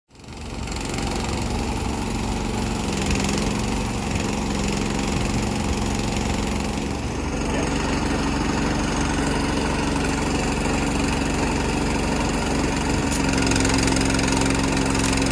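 An engine running steadily at a constant speed, its pitch stepping slightly higher near the end.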